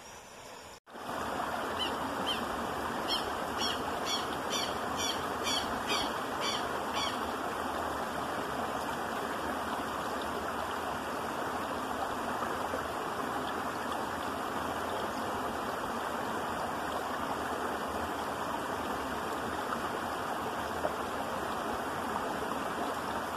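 Shallow creek water running steadily over rocks. From about two to seven seconds in, a bird gives a short high call repeated about twice a second.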